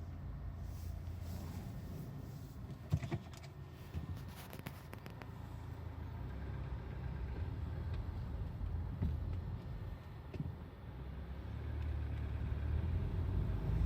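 Volkswagen Golf MK6 1.4 TSI engine running at low rpm while still cold, with the knocking that the owner suspects is piston slap or a valve lifter. It is a steady low drone with a few sharp clicks about three and four seconds in, and it grows louder near the end.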